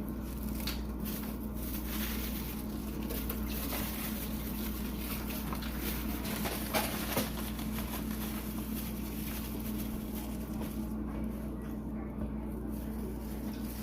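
Flour-coated chicken strips frying in oil heated to 350 degrees: a steady sizzle, with a few light knocks and clicks along the way over a low steady hum.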